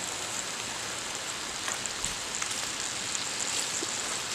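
Chicken frying in oil in a pot: a steady sizzle with scattered small pops.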